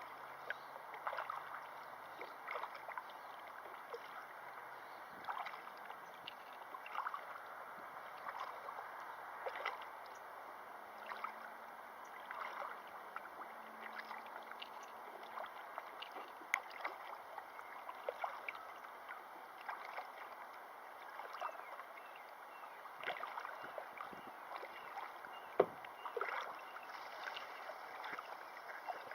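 Kern River water flowing steadily, with frequent small, irregular splashes and gurgles.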